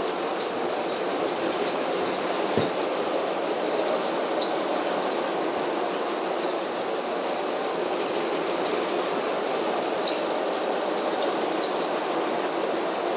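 Motorised Lego train running around a circle of plastic track: a steady whir of its motor and wheels, with one sharp click about two and a half seconds in.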